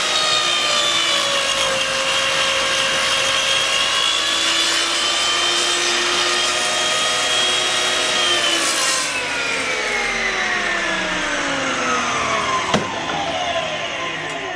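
Table saw running, its blade cutting through wood, the motor's whine sagging a little under load. About eight seconds in the saw is switched off and the whine falls steadily as the blade spins down, with one sharp knock near the end.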